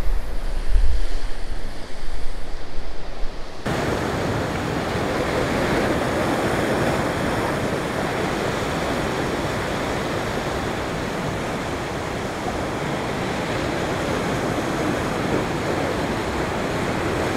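Ocean surf washing against a rocky shore, a steady, even rushing. For the first few seconds wind buffets the microphone with an uneven low rumble, which stops abruptly, leaving only the steady surf.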